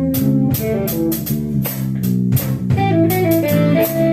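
Blues band playing an instrumental passage between sung lines: guitar over bass and a drum kit keeping a steady beat.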